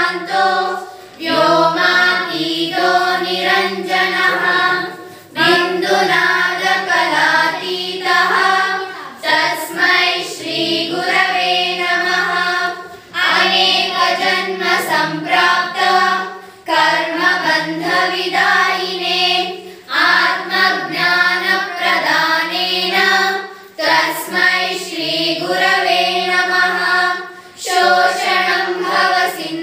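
A group of schoolchildren singing a Guru Vandana, a song of homage to teachers, together in phrases of a few seconds each, with short breaks between them.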